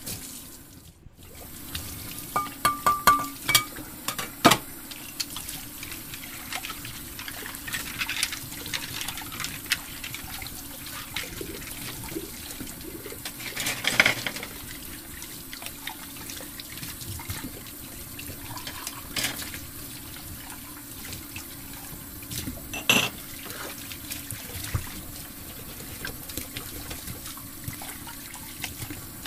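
Small plastic toy kitchen utensils handled and set down, with scattered light clicks and taps, a cluster of them a few seconds in, over a steady hiss.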